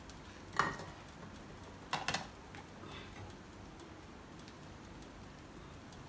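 Two short clinks of kitchen utensils, likely the slotted spoon and the charcoal being set aside from the pulao pot. The first comes about half a second in; the second, about two seconds in, is a quick double click.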